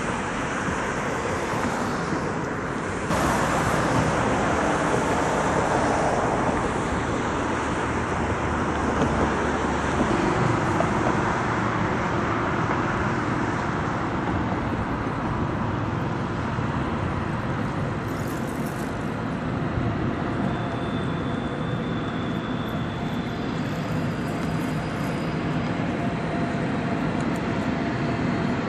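Steady city road traffic noise: a continuous wash of passing cars.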